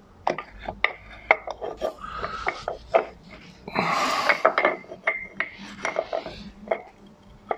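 Steel parts of an Archdale milling machine's spindle and bevel gear clinking and knocking together as they are fitted by hand, with a louder scraping rub about four seconds in.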